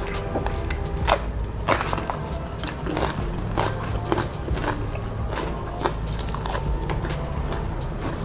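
Close-miked eating sounds: wet chewing and mouth clicks, with sharp crunches of a raw green chili being bitten and chewed, the loudest about one and two seconds in. Fingers squish and mix rice on the plates.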